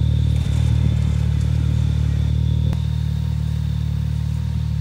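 Side-by-side UTV engine idling steadily, with a single sharp click a little past halfway.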